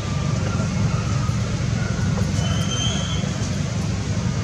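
Steady low rumble of outdoor background noise, with a few faint, short high chirps about two to three seconds in.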